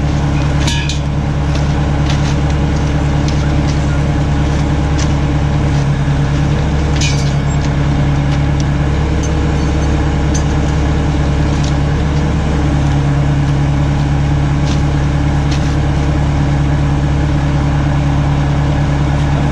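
Engine running steadily at a constant speed, a low even hum, with a few faint clicks over it.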